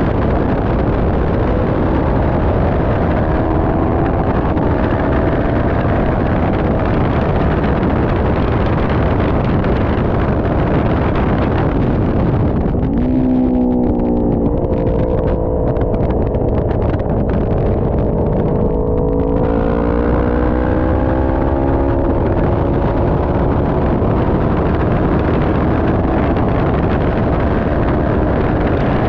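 A 400 cc race motorcycle's engine running hard on track, its note rising and falling through the corners under a steady rush of wind on the onboard microphone. A little under halfway the engine drops low for a slower corner, then climbs again as it accelerates.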